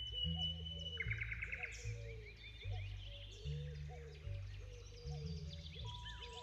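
Background music with a low bass line changing note every second or so, and birds chirping and trilling over it.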